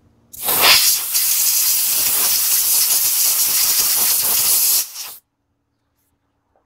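Compressed-air blow gun blowing out a freshly tapped bolt hole in an aluminum oil pan, clearing chips from the threads: a loud, steady hiss that starts about half a second in and cuts off suddenly after about four and a half seconds.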